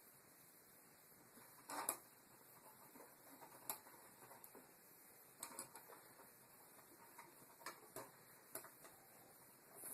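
Faint, scattered clicks and light taps, about six of them, as a light-switch cover plate is fitted back over the switch and its screws are started.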